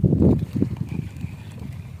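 Wind rumbling on the microphone on a small open boat at sea, loudest in the first half-second and then easing, with a few faint knocks.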